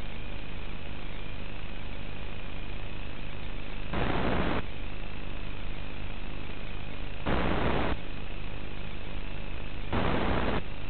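Audio from an analog FPV video link: a steady buzz and hiss, broken three times by a loud burst of radio static of about half a second each, about four, seven and ten seconds in, where the video signal drops out.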